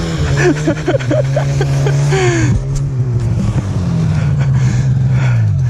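Enduro motorcycle engine revving up and held steady at high revs for about five seconds, its pitch dropping away near the end.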